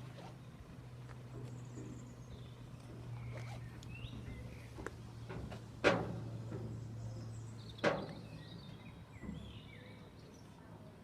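Outdoor ambience at a railway level crossing: a steady low hum with faint bird chirps, broken by two sharp knocks about two seconds apart around the middle.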